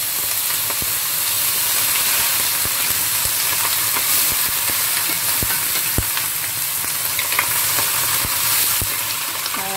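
Bok choy freshly added to hot oil and garlic sizzling and steaming in a nonstick wok as it is stir-fried with a wooden spatula. A steady hiss, with a few light knocks of the spatula against the pan.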